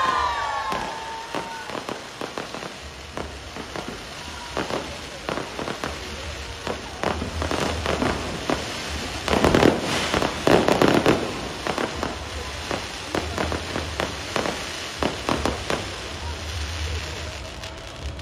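Fireworks going off overhead: a rapid, irregular series of pops, bangs and crackles, with the loudest, densest run of bangs about halfway through, thinning out near the end.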